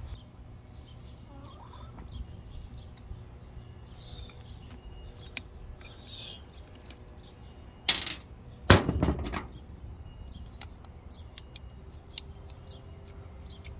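Two sharp knocks in quick succession about eight seconds in, over a low steady hum with a few faint chirps.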